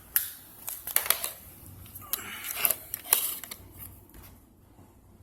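Handling noise: a series of sharp clicks and rustles over the first four seconds as things are moved around by hand, then quiet.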